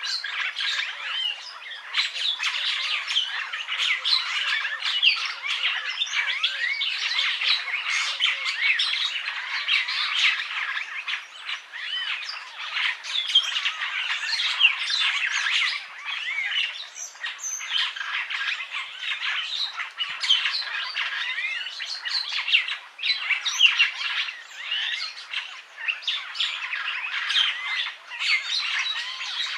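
Purple starling (Lamprotornis purpureus) singing: a dense, unbroken stream of harsh squawks, chatter and short whistled glides.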